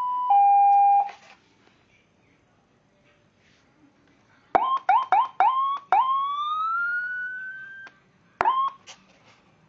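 Electronic vehicle siren demonstrating its tones: a two-tone hi-lo alternation that stops about a second in, then after a pause a rapid run of short rising chirps, a single wail rising in pitch for about two seconds and cutting off, and one more short chirp near the end.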